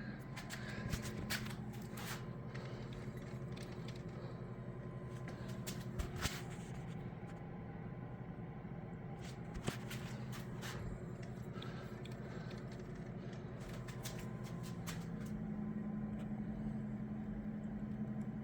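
Steady low hum with a few scattered light clicks and knocks, as of hand tools on metal while the mill head is adjusted.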